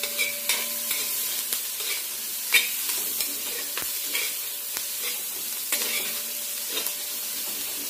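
Onions, thyme and red pepper flakes sizzling in butter in a metal pot on medium-low heat as they sweat, with a spoon stirring them and scraping and tapping against the pot every second or so.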